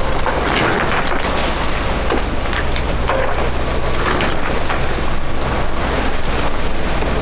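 Wind buffeting the microphone at sea: a loud, steady rushing noise with a low rumble underneath and irregular crackles throughout.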